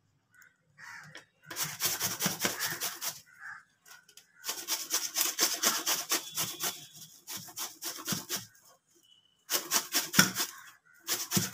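Peeled raw green mango being grated on a hand-held metal grater: quick rasping strokes in runs of one to two seconds, with short pauses between.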